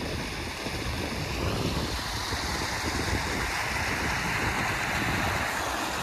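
Swollen creek running high and swift: a steady rush of fast water, with wind rumbling on the microphone.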